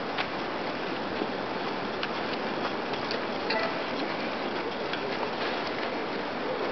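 Steady outdoor ambient hiss, even and without a clear source, with scattered faint clicks and ticks.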